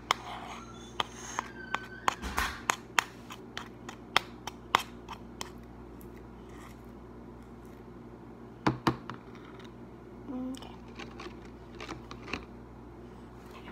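Large plastic spoon knocking and scraping against a plastic tub while stirring and scooping glue slime: a run of sharp clicks over the first few seconds, a louder cluster of knocks about two-thirds of the way through, and scattered lighter ticks near the end.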